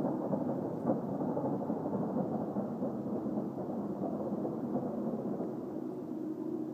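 A steady low rumbling drone of unknown origin outdoors, with faint humming tones in it and a brief click about a second in.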